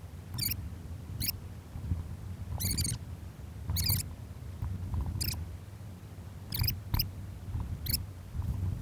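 Skis and poles on hard, cold snow: short squeaky scrapes about once a second over a low rumble.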